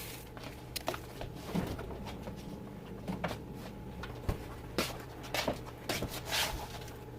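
A scattering of light clicks, knocks and brief rustles of small things being handled, a dozen or so at uneven intervals, over a faint steady hum.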